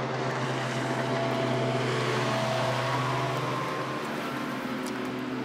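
Motorboat engine passing on the river: a steady drone with a low hum, easing off slightly near the end.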